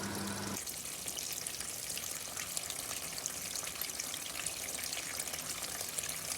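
Tap water running steadily into the wash tub of a twin-tub portable washing machine, filling it with fresh water for the rinse. A low hum stops about half a second in.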